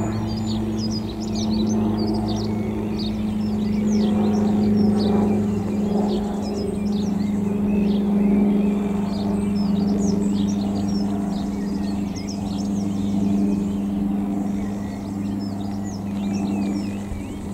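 Light propeller aircraft flying overhead, its engine and propeller giving a steady droning hum that swells a little towards the middle. Songbirds chirp throughout.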